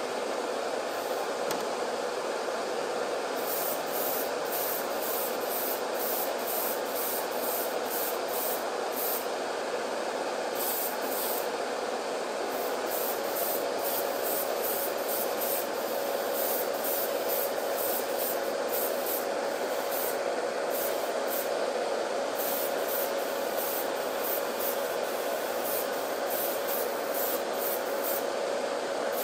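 Iwata TRN1 airbrush spraying paint in many short trigger bursts of hissing air, about one or two a second, over the steady hum and rush of a spray booth's exhaust fan.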